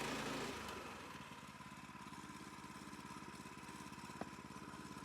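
Small gasoline engine on a Woodland Mills bandsaw mill drops from throttle back to idle in the first second, then idles with a steady, rapid pulse. A single short click comes about four seconds in.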